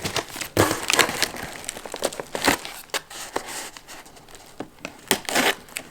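Packaging crinkling and rustling as a package is opened by hand, with irregular sharp crackles, the loudest about half a second in and near the middle.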